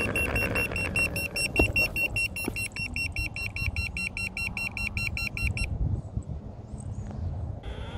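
Electric longboard beeping rapidly, about five short high-pitched beeps a second, a warning beep of unknown cause that the rider blames on its wiring. The beeping stops about two-thirds of the way through, leaving low wind rumble.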